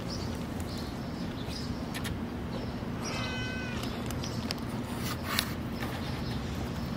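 A white stray cat meows once, a short high meow about three seconds in, over a steady low rumble. A sharp click comes about five seconds in.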